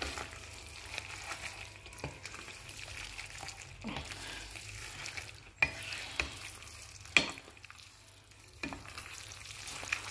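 Spaghetti and fish balls cooking in tomato sauce in a frying pan, stirred and tossed with a wooden spatula. The spatula knocks sharply against the pan about six times, loudest about seven seconds in.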